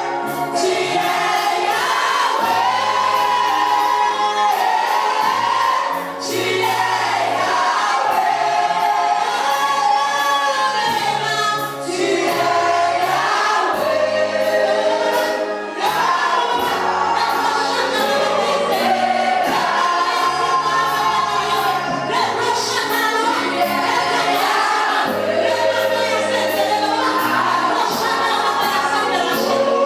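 Gospel choir singing, accompanied by a band with a steady bass line and regular drum beats.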